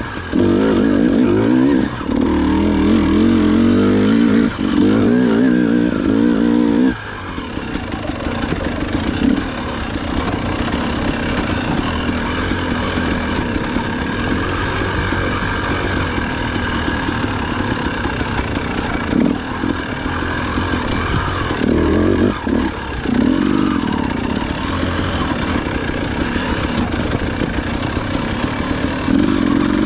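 Dirt bike engine under way on a trail, revving hard through the first several seconds with short throttle lifts, then running more steadily at lower load, with more bursts of throttle later on.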